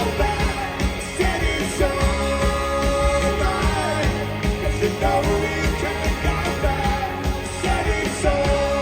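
Rock band playing live with a sung vocal line of long held notes over full band backing.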